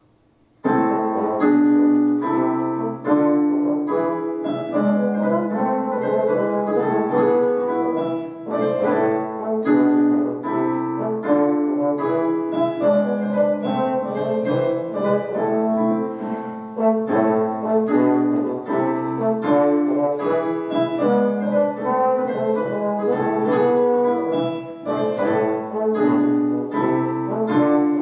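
Tenor trombone and piano playing a classical piece together; the music begins sharply a little under a second in after silence, then runs as a busy stream of notes.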